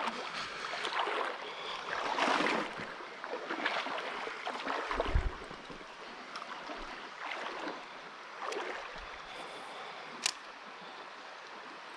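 Water of a shallow, clear river running, with irregular swells of splashing and rustling noise. A single sharp click comes about ten seconds in.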